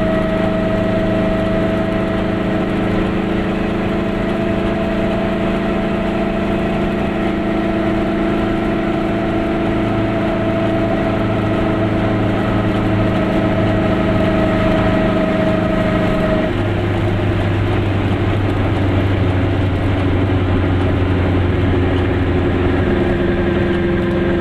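Glas Goggomobil's air-cooled two-stroke twin-cylinder engine running steadily while driving, heard from inside the small car's cabin. About two-thirds of the way through, its note changes abruptly and then runs steady again.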